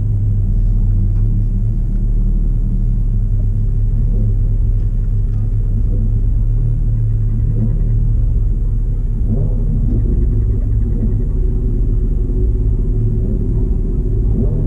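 Steady low engine rumble of idling cars, heard from inside a car's cabin.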